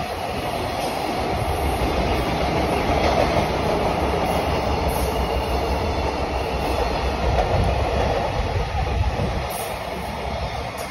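A JR Freight container train's flat wagons passing close by on the track: a steady, loud rumble of wheels on rail that eases slightly near the end.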